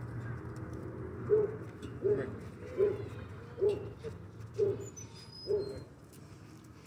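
A bird cooing: a series of about six short, low notes, evenly spaced a little under a second apart.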